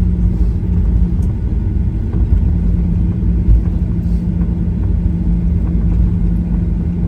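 Boeing 737-800 cabin noise heard from a passenger seat: a steady low rumble with a steady hum from the engines and airframe.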